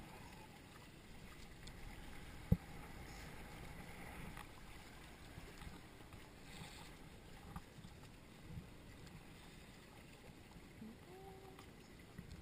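Water sloshing against the hulls of a Hobie Cat catamaran under sail, a low steady wash, with one sharp knock about two and a half seconds in and a couple of fainter knocks later.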